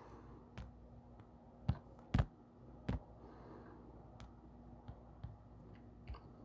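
Scattered light taps and clicks of a Wi-Fi password being typed on a smartphone, three of them louder around the middle, over a faint steady hum.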